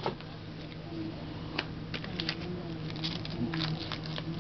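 Baseball trading cards being handled and flipped through: a run of light, irregular clicks and rustles, over a faint steady low hum.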